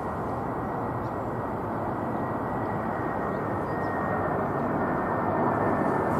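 Delta Boeing 767's twin turbofan engines on landing approach: a steady rushing roar with a thin high whine, growing steadily louder as the jet closes in overhead.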